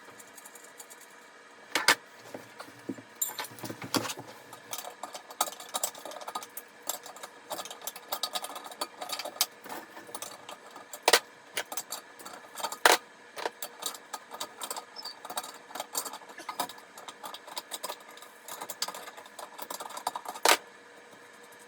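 Quick, irregular metallic clicks and clinks of a tool working the nuts on a toilet's tank-to-bowl bolts as they are loosened, the sound sped up along with the footage.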